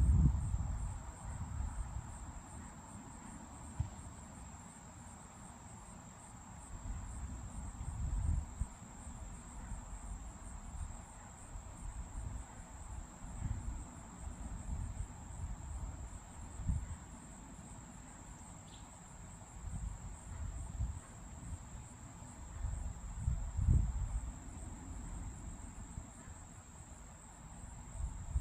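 A steady, high-pitched insect chorus trilling without a break. Low rumbles come and go underneath it, loudest near the start, about eight seconds in and about twenty-three seconds in.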